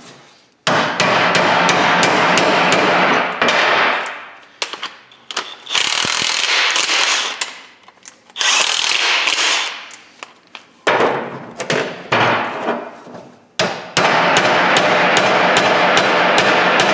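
Cordless impact wrench hammering the bolt of an exhaust pipe expander in several long bursts of rapid rattling, with blows from a ball-peen hammer on the expander. The sound is a steel exhaust pipe end being stretched open to fit over the mating pipe.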